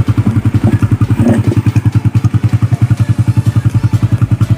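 Suzuki Raider R150 Fi's single-cylinder four-stroke engine idling, a steady fast putter of about ten beats a second.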